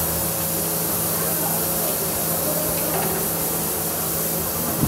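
Steady hiss of steam from the open dum pukht cooking pots, with a low steady hum underneath and a brief knock near the end.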